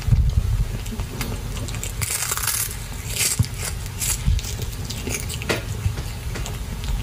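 A kitten chewing a small whole fish, with irregular crisp crunches as it bites through it.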